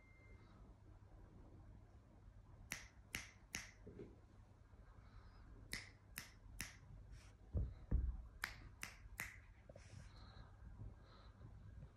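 Finger snaps in three sets of three quick snaps, the sets about three seconds apart. Between the second and third sets there is a dull low thump.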